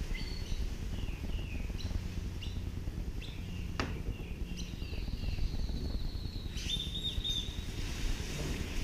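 Birds chirping and whistling in short calls, with a high trill near the end, over a low rumble of wind on the microphone. A single sharp click a little under four seconds in.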